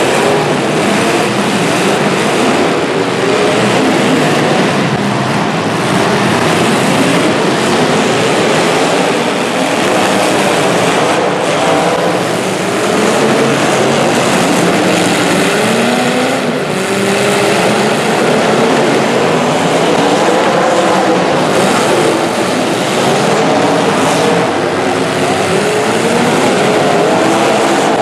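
Several demolition derby car engines running and revving at once, their pitches rising and falling over one another in a continuous loud din.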